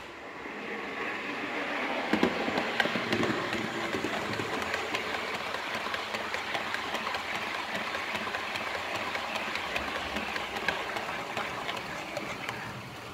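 H0-scale model train, a Roco SNCF BB 7200 locomotive hauling Electrotren RENFE Talgo coaches, running past close by, its wheels rattling and clicking over the rail joints. The sound builds over the first two seconds, is loudest about two seconds in as the head of the train passes, then runs on steadily while the coaches go by.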